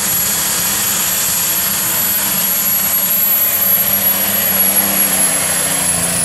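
Light super stock pulling tractor's engine running flat out under load as it drags the weight sled down the track, a loud steady drone that swells slightly as it passes about four seconds in.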